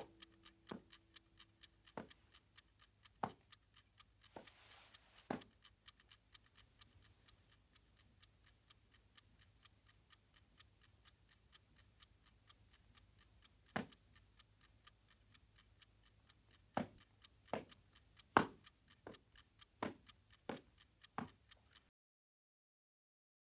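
Clock ticking steadily in a quiet room, with louder single clicks or knocks at irregular intervals; the sound cuts off about 22 seconds in.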